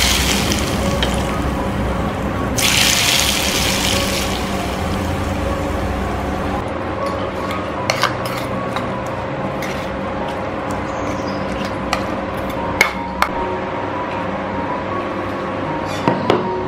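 Hot oil ladled onto raw sambal matah in a stainless steel bowl, sizzling in two bursts: one at the start and another about three seconds in. Then a spoon stirs the sambal, with a few sharp clinks against the bowl.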